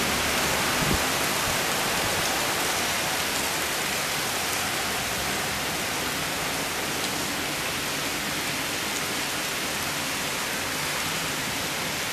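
Steady, heavy rain hissing on paved ground, with water splashing out of a metal downpipe onto the flooded pavement. A single soft thump about a second in.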